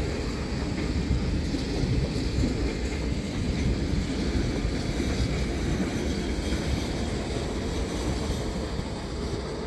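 A train running through the station: a steady, low rumble of wheels and running gear.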